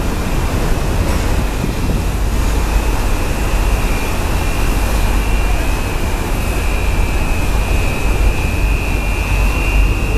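Steady rumble and rushing noise on the deck of the Blue Star Ithaki ferry under way, with a thin, steady high whine over it.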